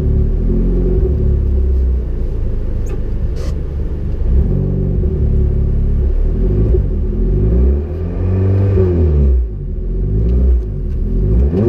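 Rally car engine running while the car is held stationary at the stage start, heard from inside the cabin; from about seven seconds in it is revved up and down several times.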